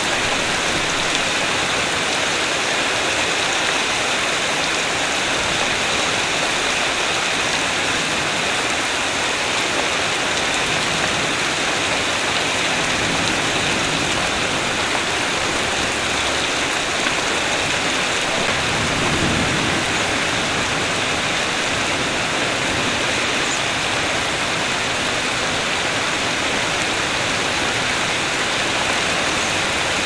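Steady rain falling, an even, dense hiss throughout. A low rumble swells up briefly about two-thirds of the way through and fades again.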